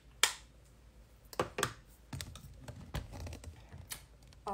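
Handling noise from a phone filming at close range as it is picked up and turned: a handful of sharp clicks and knocks, the loudest just after the start, with soft low rumbles between.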